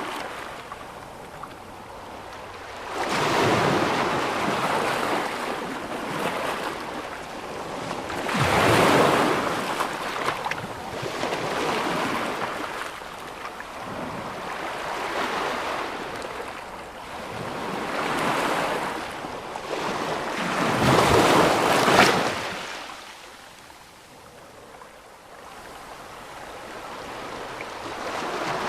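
Sea waves breaking close by, one after another: each comes in as a loud rush of surf every few seconds and falls back to a hiss, the biggest one about three-quarters of the way through.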